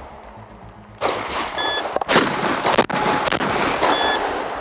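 Panzer Arms EG200 12-gauge semi-automatic shotgun fired in a rapid string of shots from about a second in, the shots coming within roughly two seconds and each ringing out across the range.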